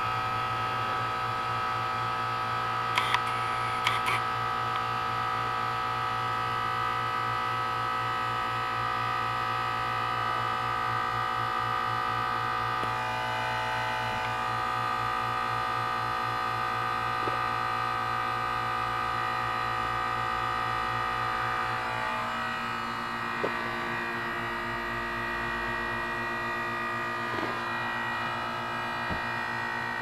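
2004 Carrier 10 SEER 3-ton heat pump outdoor unit running in defrost mode, its compressor giving a steady electrical buzzing hum while the outdoor fan is stopped. A couple of faint clicks come about three and four seconds in, and the hum's tone shifts slightly later on.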